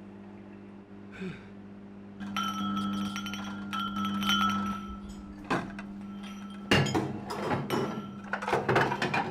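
Dinner plates and wine glasses clinking and clattering as stacks are carried in and set down, with glassy ringing. The clatter starts about two seconds in and comes thickest near the end, over a steady low hum.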